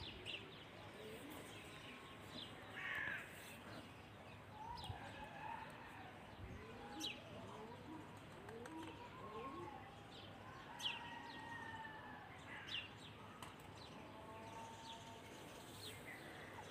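Faint outdoor birdsong: several birds giving short chirps and calls, scattered irregularly throughout.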